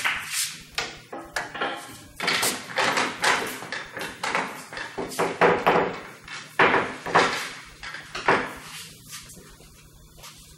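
Pool balls clacking against one another as they are gathered and packed into the rack for 9-ball: a fast, uneven run of sharp knocks that dies down near the end.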